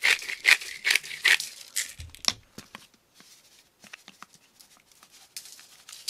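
Salt and pepper grinders twisted by hand over fish fillets on foil: quick rasping clicks of the grinding, busiest in the first two seconds, with a dull bump about two seconds in and fainter clicks after.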